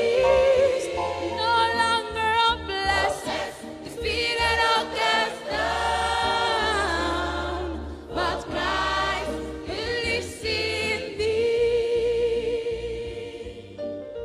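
Gospel music: a choir singing long, held notes over a steady bass.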